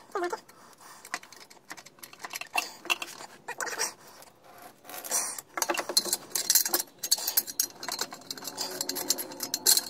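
Socket ratchet clicking as it undoes an exhaust bolt, mixed with small metallic clinks of the tool. A few scattered clicks come first, then rapid clicking from about halfway in as the bolt is wound out.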